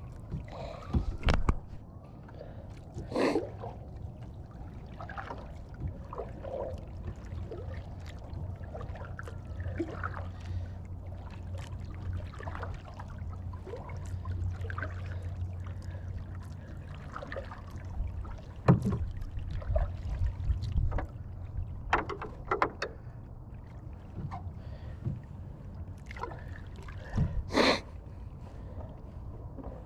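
Knocks and clunks from a Tucktec folding plastic kayak being handled, with a few louder thumps scattered through, over a steady low rumble.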